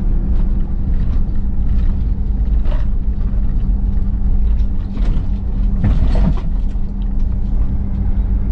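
Car engine and tyre noise heard from inside the cabin while driving slowly along a street: a steady low rumble with a constant hum.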